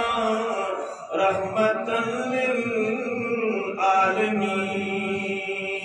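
A man's voice chanting religious verse in long, held melodic phrases into microphones, amplified over a public-address system.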